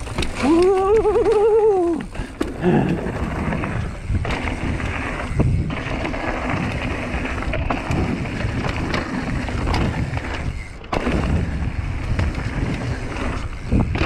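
Hardtail mountain bike rolling fast down a dirt jump trail: tyre noise on dirt with knocks and rattles from the bike over bumps and landings. About half a second in, a wavering high-pitched sound rises and falls for about a second and a half.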